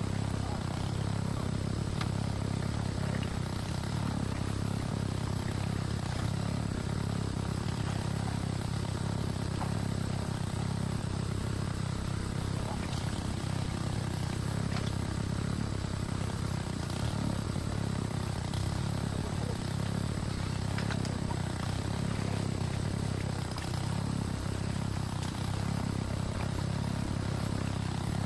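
Small petrol engine of a water pump running steadily at a constant speed, pumping out a dammed section of river.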